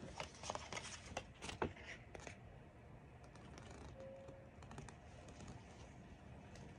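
Paper dust jacket crinkling and rustling as it is taken off a hardcover book and unfolded: a quick run of small crackles and clicks that dies away after about two seconds.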